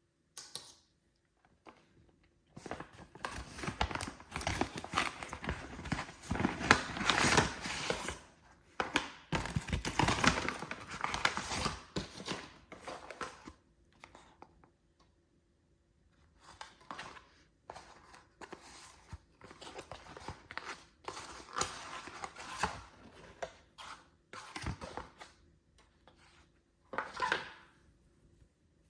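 Parcel packaging being opened by hand: paper and card rustling, crinkling and tearing in a long busy stretch, then softer handling, with one short loud rustle near the end.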